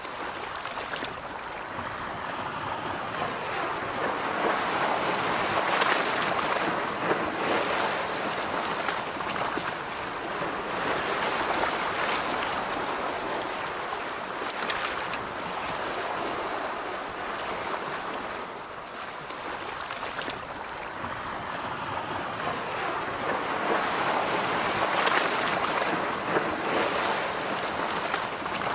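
Ocean surf washing onto a beach, the rush of the waves swelling and easing in slow surges several seconds apart.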